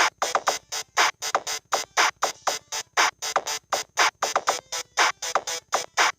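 Samsung SGH-T410 mobile phone playing a synthesized ringtone: a quick staccato melody of short notes, about four or five a second, in a repeating phrase.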